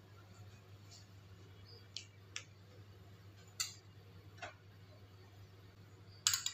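Cooking oil heating in a wok: a few scattered ticks and small pops from the hot oil over a low steady hum, with one louder, sharper burst near the end.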